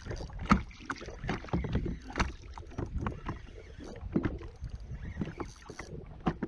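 Irregular knocks, small splashes and handling noises from a fishing kayak on the water, with no steady rhythm; the sharpest knock comes about half a second in.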